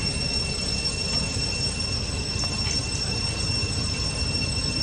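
Steady high-pitched insect drone, one unbroken whine that never changes, over a constant low rumbling background noise.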